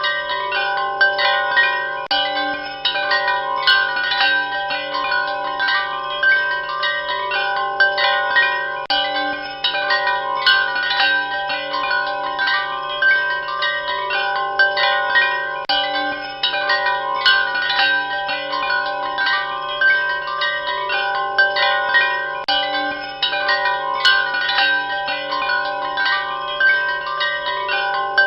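Wind chimes ringing continuously, many clear overlapping tones struck in quick, irregular succession, each note ringing on under the next.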